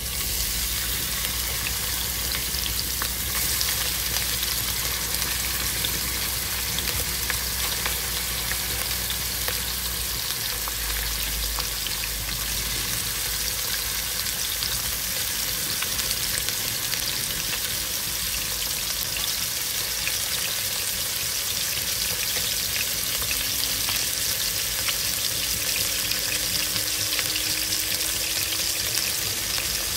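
Raw chicken skin frying in hot oil in a nonstick pot, with a steady sizzle full of small crackles. The sizzle starts suddenly right at the beginning.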